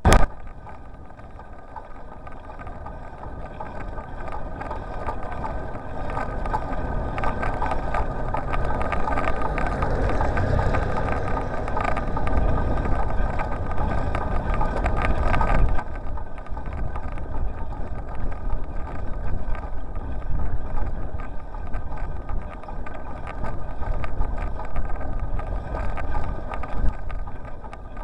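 A bicycle-mounted dashcam riding along, with wind noise on its microphone and continual rattling and bumping from the bike and road, after a sharp click right at the start. The noise grows louder over the first few seconds and eases somewhat about halfway through.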